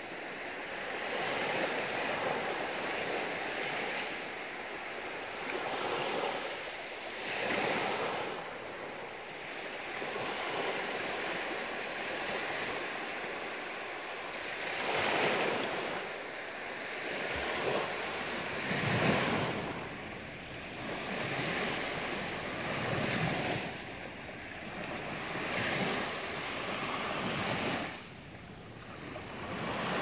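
Small sea waves breaking and washing up a shallow sandy beach, the surf swelling and fading every few seconds.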